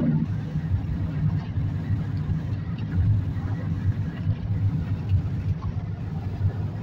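Steady low road rumble heard inside a car cabin at highway speed: tyre and engine noise.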